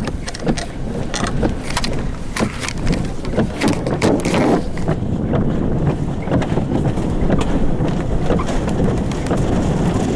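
Vehicle cabin noise while driving: a steady rumble of road and wind, with frequent sharp taps and knocks throughout and a brief louder swell about four seconds in.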